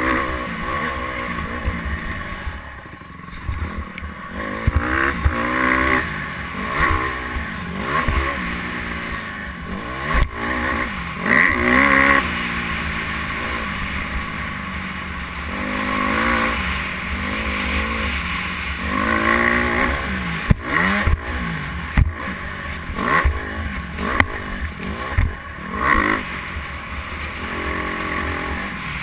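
Dirt bike engine revving hard and dropping back over and over as the rider accelerates, shifts and rolls off through the track's jumps and turns. There are a few sharp knocks along the way.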